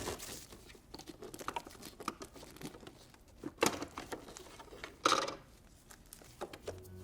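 Hands handling plastic parts of a cordless vacuum cleaner. There are scattered small clicks and taps with some crinkling, and two louder rustling scrapes about three and a half and five seconds in.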